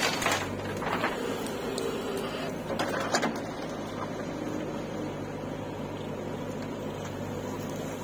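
Diesel engines of a JCB backhoe loader and a tractor running steadily, with sharp knocks and clanks from the backhoe bucket working stony soil. The knocks are loudest right at the start and again around three seconds in.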